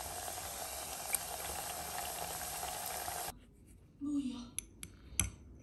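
Liquid bubbling hard in a steel pot, a steady fizzing hiss that cuts off suddenly about three seconds in. A few light clicks and taps follow near the end.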